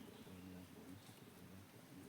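Near silence, with a faint voice speaking quietly.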